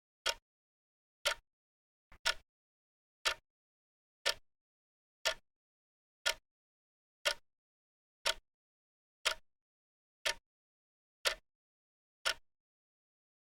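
Clock ticking, one sharp tick each second with dead silence between ticks.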